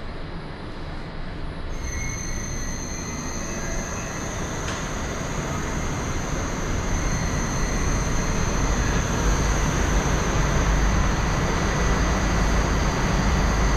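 Interior of an 81-760/761 Oka metro car standing with its doors open: a steady hum from the train's onboard equipment, with a thin high-pitched whine that comes in about two seconds in. The whole sound grows gradually louder.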